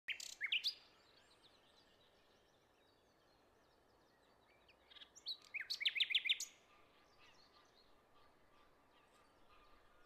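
Small songbirds chirping: a quick run of short, high, rising notes at the very start and again about five seconds in, with fainter calls in between.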